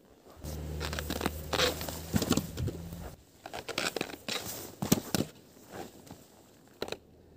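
Snowskate deck slapping down and scraping on packed snow, with boots crunching, in a string of short knocks and scuffs. A low steady hum runs under the first three seconds.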